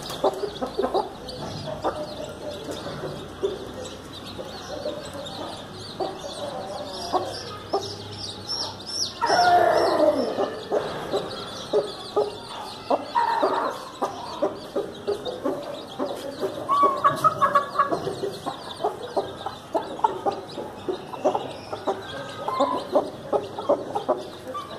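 Mother hen, a Thai game cross, clucking to her brood while the chicks peep in high, rapid calls. There are short scratching and pecking clicks throughout. About nine seconds in comes a louder, longer call that falls in pitch, and a run of loud calls follows near seventeen seconds.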